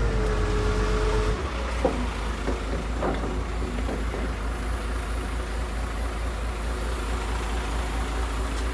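Boat engine running steadily under way, a continuous low rumble with a rush of wind and water over it.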